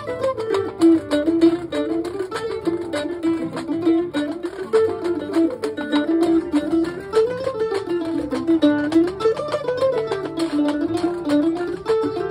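Acoustic string band playing a lively instrumental tune: a picked acoustic guitar with a quick melody running up and down, over a steady scraped washboard rhythm.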